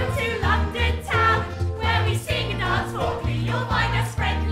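Music for a stage musical number, with a strong, sustained bass.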